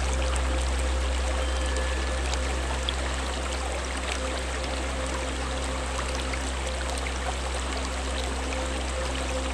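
Mountain stream running over rocks: a steady, unbroken rush and trickle of water, with a low steady hum beneath it.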